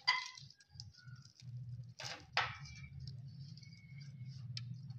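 Close-up eating sounds: a paratha being torn by hand, with two short rasping tears about two seconds in, and chewing and small mouth clicks. There is a short ringing clink at the very start.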